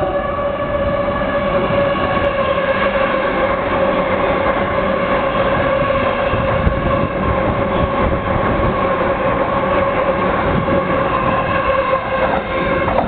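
Orange-striped Chuo Line E233-series electric commuter train passing through a station platform without stopping. Its wheels rumble loudly on the rails under a steady whine.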